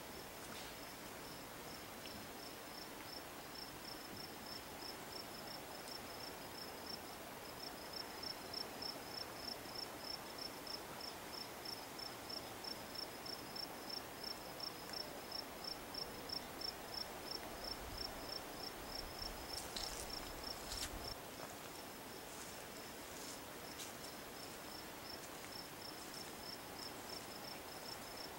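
A cricket chirping steadily in a high, even rhythm of about three chirps a second, over a faint steady background hiss, with a few faint clicks about two-thirds of the way through.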